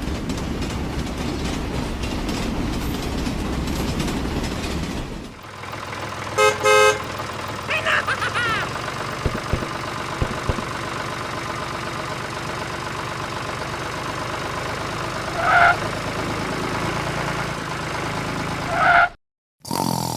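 Engine of a miniature vehicle running steadily, with a short horn toot about six and a half seconds in and a few brief squeaks later on.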